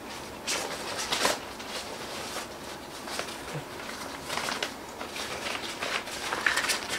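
Black nylon rod sleeve being handled and pulled open, its fabric rustling and brushing in irregular strokes.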